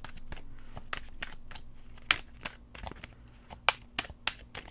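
Tarot deck being shuffled by hand: an irregular run of sharp card flicks and slaps, the loudest about two seconds in and again near four seconds.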